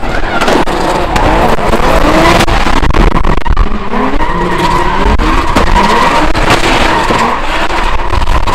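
Drift car sliding under power: the engine revs rise and fall again and again as the driver works the throttle, over continuous tyre squeal and screech that settles into a held high squeal in the second half.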